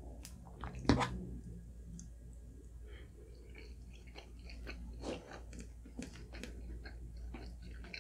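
Close-miked chewing and wet mouth sounds of a person eating, with scattered small clicks and one sharp click about a second in.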